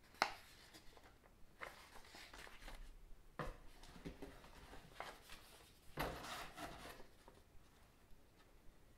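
Paper instruction booklets being handled, shuffled and set down on a wooden surface: a sharp tap just after the start, then short rustles and light knocks, the longest rustle about six seconds in.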